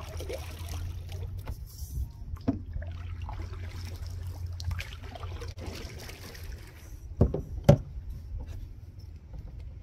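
Canoe being paddled: paddle strokes with water trickling and dripping, over a steady low rumble. A few knocks, the loudest two close together about seven seconds in.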